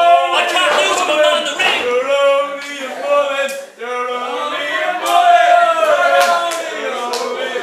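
Wrestling crowd chanting in a hall, the voices held and sung out in long drawn notes, with a few sharp impacts between.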